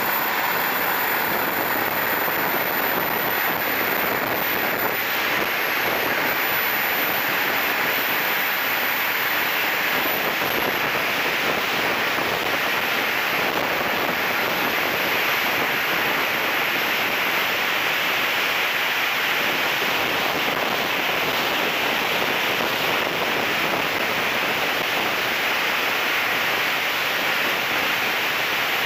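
Steady rush of wind on the wing-mounted camera of a turbine-powered BVM F9F-6 Cougar RC jet in flight, with the turbine's thin high whine above it. The whine drops in pitch about ten seconds in.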